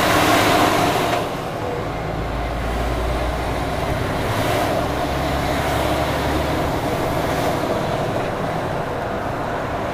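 Lorry cab noise while driving: the engine and road noise run steadily. In the first second there is a loud rush as an oncoming tipper lorry passes close alongside. From about two seconds in to about six and a half there is a deeper drone.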